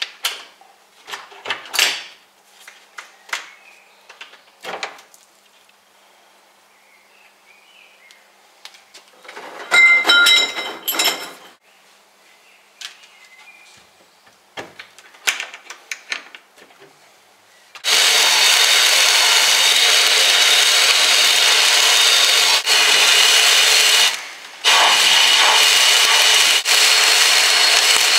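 Clicks, knocks and a short rattle as the parts are handled and the cabinet door latched. Then, about two-thirds of the way in, the sandblast gun in a homemade wooden sandblasting cabinet starts: a loud steady hiss of compressed air and abrasive blasting hydraulic jack parts. It stops briefly about three-quarters through and then resumes.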